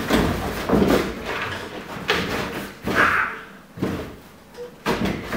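Cardboard box knocked and thumped as a cat leaps and claws at it, with scraping rustles of cardboard: a series of knocks about a second apart.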